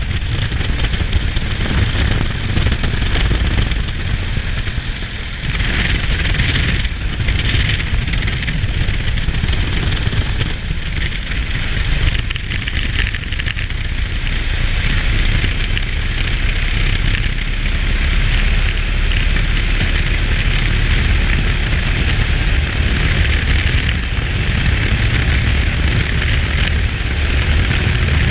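Engine of a Fokker Dr.I triplane replica running steadily on the ground, propeller turning, heard from the open cockpit.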